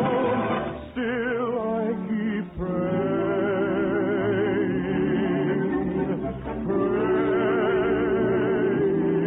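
Orchestral music with voices singing wordless, sustained, wavering notes in several phrases, heard with the narrow, muffled sound of an old radio recording.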